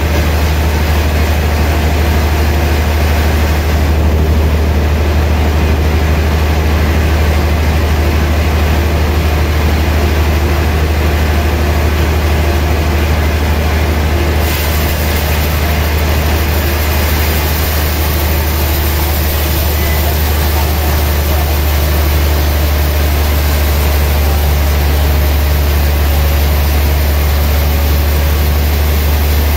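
Large band sawmill running steadily, its blade cutting through a gayam log as the carriage carries it past, over a loud low hum from the mill's motor. A brighter, higher hiss joins about halfway through.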